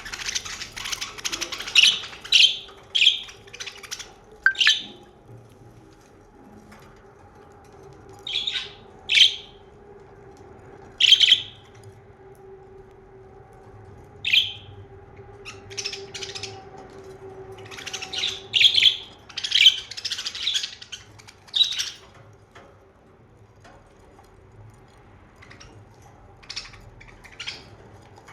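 Pet budgerigars chirping in short, high calls that come in clusters with pauses between, thinning out and growing faint near the end.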